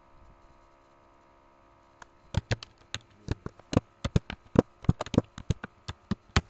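Typing on a computer keyboard: a run of about twenty quick, irregular keystrokes, starting about two seconds in, as a password is entered. Before them, only a faint steady hum.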